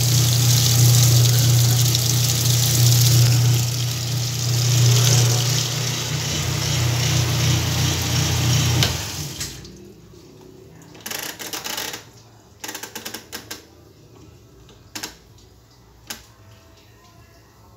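Whirlpool washing machine running water through its tub with a steady low hum. About nine seconds in, the hum and water stop, leaving only a few scattered clicks and knocks.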